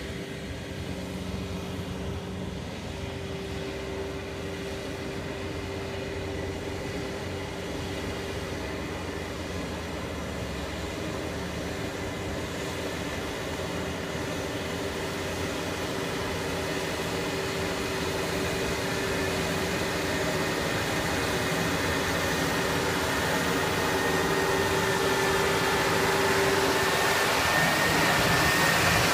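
Rubber-tracked 100 HP paddy tractor running steadily as it tills flooded mud with its rotary tiller, growing louder as it draws near. A faint high whine comes in near the end.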